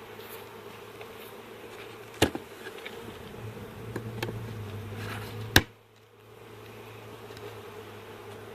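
Honeybees buzzing steadily in a colony inside a parrot nest box, with two sharp knocks, about two seconds in and again past halfway, the second the louder.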